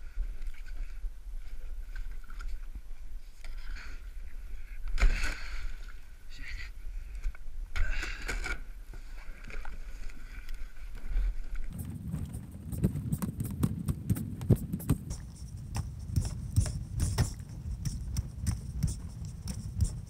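Kayak hull pushing through a thin sheet of new sea ice: scattered knocks and a couple of louder crunches at first, then, for the last third or so, a continuous dense crackling and grinding as the ice breaks against the bow.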